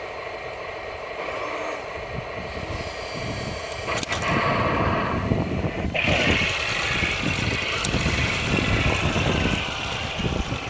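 Sound unit of a 1:16 Heng Long Panther RC tank playing its simulated tank engine. It runs steadily, then grows louder about four seconds in after a sharp click, and changes again about six seconds in, as the tank moves off.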